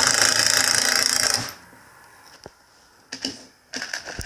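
DeWalt cordless driver running for about a second and a half as it drives a screw into a wooden block, then stopping. A few light knocks and clicks follow near the end.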